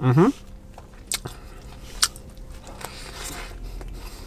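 A short closed-mouth 'mm-hmm' of approval, then a person chewing a mouthful of fried fish sandwich with a few sharp mouth clicks and soft crunching.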